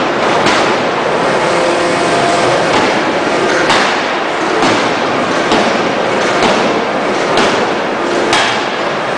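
Electro-hydraulic open-die forging hammer striking a red-hot steel shaft forging in a steady rhythm, about one blow a second, over a continuous shop din.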